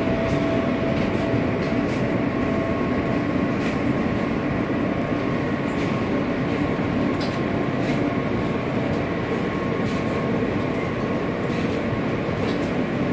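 Steady rumble and hum inside a New York City E-train subway car, with a few constant tones running through it and light clicks scattered here and there.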